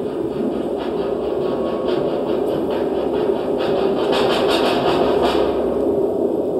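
Electronic soundscape for a dance piece: a dense, steady noisy drone that swells slowly, with a fast run of clicks, about four or five a second, for a couple of seconds in the middle.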